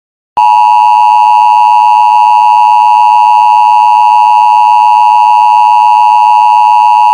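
Emergency Alert System attention signal: a loud, steady two-tone alarm that starts abruptly just under half a second in and holds without a break. It is the tone that announces an emergency alert broadcast, here a tornado warning.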